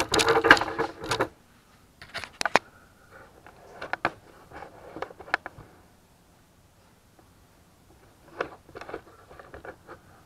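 Cast aluminium ingots being handled and set down on a stack on a workbench: a burst of clattering at the start, then scattered clacks and scrapes.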